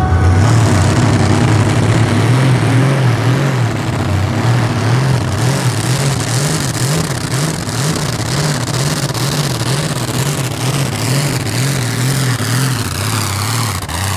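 Limited Modified pulling tractor's engine running at full throttle under load as it drags the pulling sled, its low note wavering rapidly up and down. Near the end the pitch starts to fall as it passes by.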